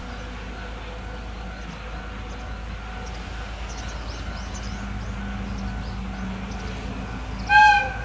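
Diesel freight locomotive approaching, its engine a low rumble that slowly grows louder, then one short blast of its horn near the end.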